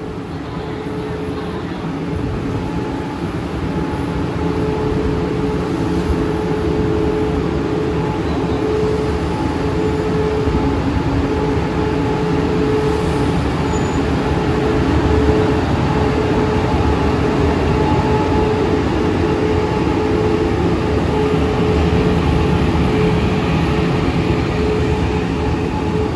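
HXD1D electric locomotive running at close range: a loud, steady hum and rumble from its machinery with a steady whining tone over it. It grows louder over the first couple of seconds as the locomotive draws near, then holds steady.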